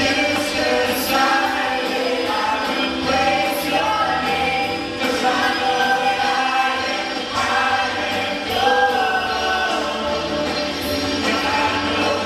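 Live worship song: a man and a woman sing together into microphones over an electric guitar band accompaniment, with long held notes.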